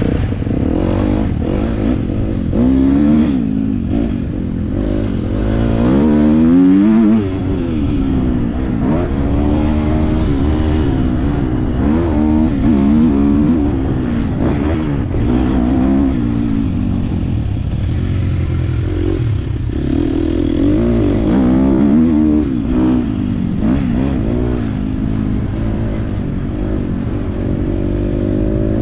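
Motocross bike engine being ridden hard on a dirt track, revving up and dropping back again and again as the rider accelerates, shifts and eases off for the turns.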